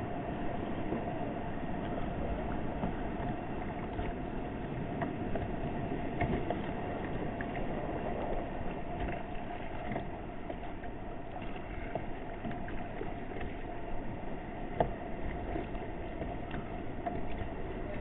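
Steady rumbling wash of wind and sea water around a kayak on choppy ocean, with scattered faint ticks and one sharper knock near the end.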